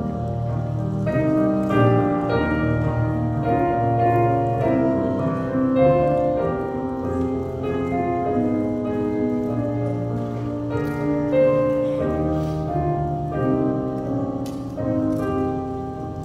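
Piano music played on an electric keyboard: sustained chords under a slowly moving melody.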